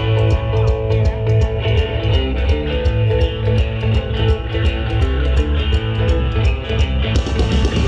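Live band playing a rock tune, with electric guitar, a heavy bass line and a steady drum beat.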